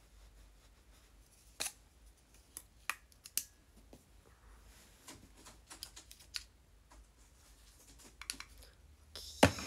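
Quiet hair styling with a curling iron: scattered small clicks and taps of the iron being handled and wound through hair, with a louder rustle and hiss near the end.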